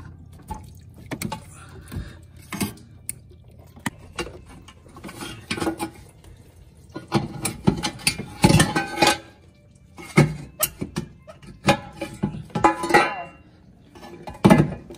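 Irregular metallic clanks, knocks and scraping as the exhaust downpipe and nearby engine-bay parts are worked loose by hand, with a loud clank near the end as the pipe comes free.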